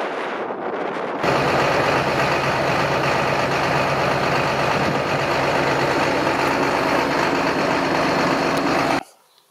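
Large John Deere farm tractor's diesel engine running steadily at an even pitch. It starts abruptly about a second in and cuts off suddenly near the end. Before it, wind rushes on the microphone.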